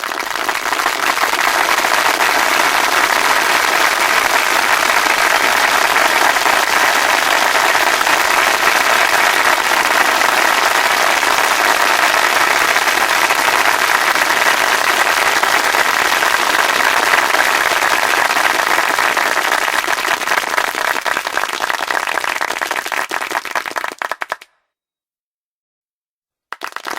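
A dense, steady patter of many small impacts, cutting off suddenly about 24 seconds in and starting again just before the end.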